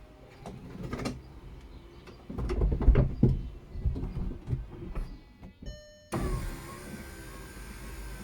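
VW Eos folding hard-top roof mechanism working: irregular clunks and knocks with heavy low thumps as the roof sections move. A short tone sounds a little before two-thirds of the way through. A steady electric-motor whine then starts abruptly and keeps running.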